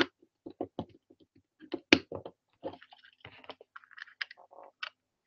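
Irregular light clicks and taps, scattered and uneven, with no steady rhythm.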